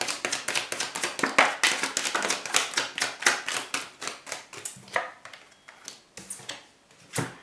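Tarot deck being shuffled by hand: quick card slaps and flicks, about five a second, thinning out over the last few seconds, with one sharper flick near the end.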